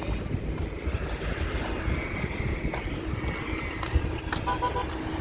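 A motor vehicle's engine running close by, over a steady rumble of traffic noise, with a steady hum coming in about three seconds in.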